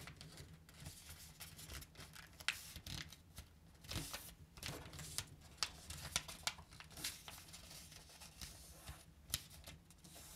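Sheet of A4 paper being handled and folded by hand as a paper airplane's wing is folded up and creased: faint, scattered rustles and crinkles.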